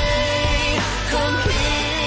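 Pop song recording: a sung vocal holding notes over a band backing with a steady bass and beat.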